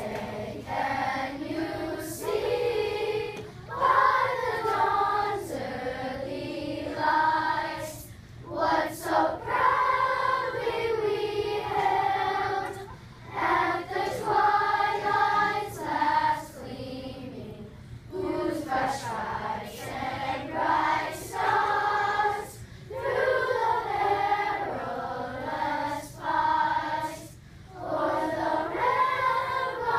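A choir of elementary-school children singing together in phrases, with short breaks between them.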